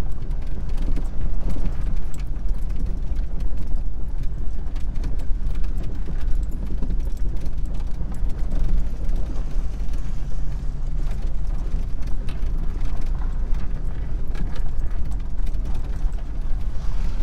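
Truck driving slowly over a rough unpaved lot, heard from inside the cab: a steady low rumble of engine and tyres with the cab rattling and creaking over the bumps.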